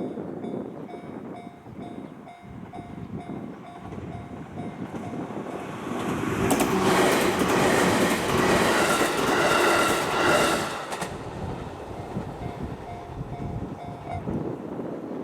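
Japanese level-crossing alarm bell dinging in an even repeating pattern while a JR Ryomo Line train passes over the crossing, loudest from about six to eleven seconds in. The bell stops near the end as the crossing clears.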